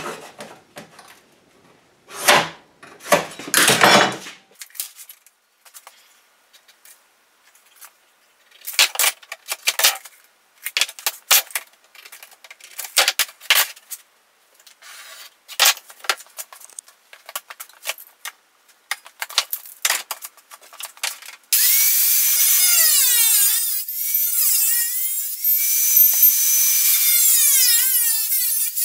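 Sheet steel being cut to a square patch piece: a run of short, irregular scrapes and clicks with gaps, then about 21 seconds in a power tool starts cutting and runs continuously, its pitch wavering under load.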